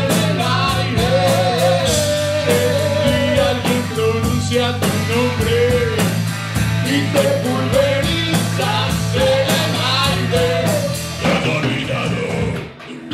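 Live rock band playing: a sung vocal line over electric bass, electric guitar and a drum kit with steady cymbal hits. Near the end the music dips and the song comes to a close.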